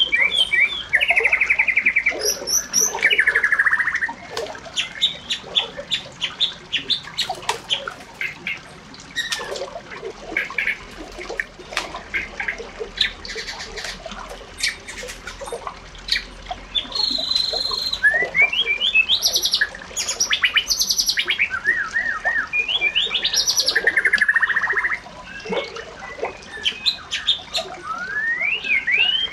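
Birds calling and chirping, with fast trills, rising whistled sweeps and many short chips.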